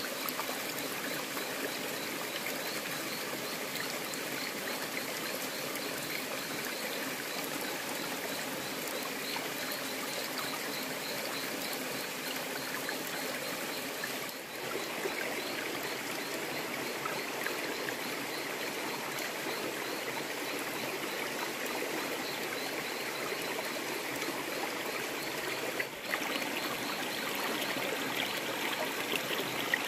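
Shallow forest stream running and trickling over rocks, a steady rush of water.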